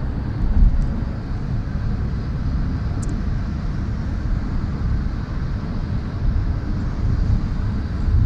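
Steady low rumble of a moving road vehicle heard from inside the cabin: engine and tyre noise while driving along.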